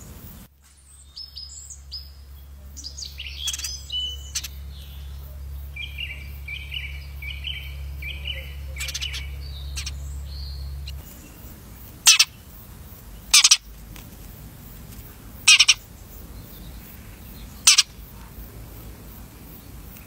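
House sparrow chirping, a run of short high chirps repeated quickly through the first half. It is followed by four loud, short bursts of noise spaced a second or two apart.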